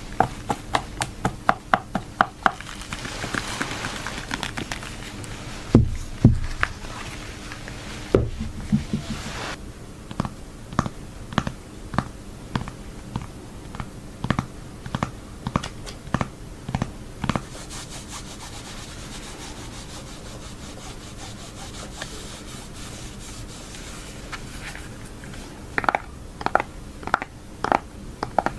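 High-heeled shoes clicking on a hard floor in steady walking steps, about two a second, in several runs. Between the runs there are two heavier thumps and stretches of soft rubbing.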